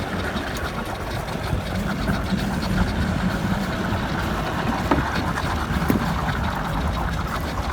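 An engine idling steadily, a low rumble under a steady rushing noise, with a couple of faint clicks about halfway through.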